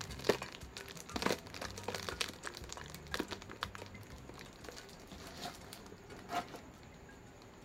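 Clear plastic bag crinkling and crackling as it is handled and opened, busiest in the first few seconds, then a few scattered crackles.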